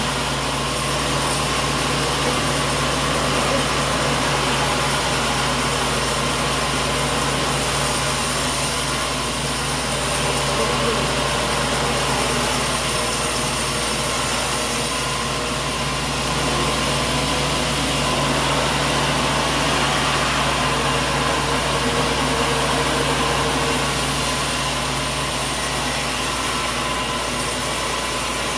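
Sawmill machinery running steadily: a constant mechanical din with a low, even hum underneath.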